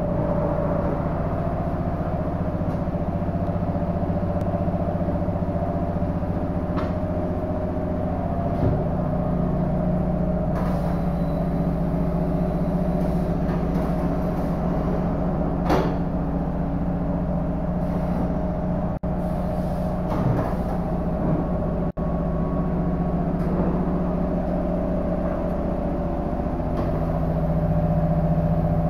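A steady mechanical drone with a constant low hum, with a few brief clinks.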